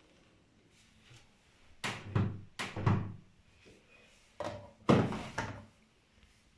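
Daewoo DWD-FT1013 front-loading washing machine drum turning slowly, with wet laundry thudding inside it: two groups of heavy thumps, a few knocks each, about two seconds apart.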